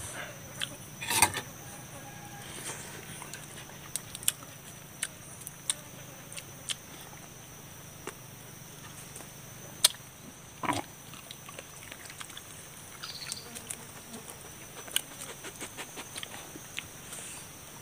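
Close-up eating sounds: scattered sharp clicks and smacks of mouth chewing and fingers tearing roast chicken meat. A louder cluster comes about a second in and two more around the middle, over a steady low hum and a thin high background tone.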